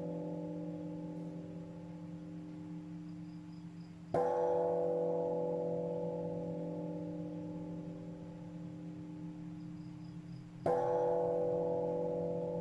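A deep meditation bell struck twice, about six and a half seconds apart. Each stroke rings on in several steady tones and fades slowly, and an earlier stroke is still dying away at the start.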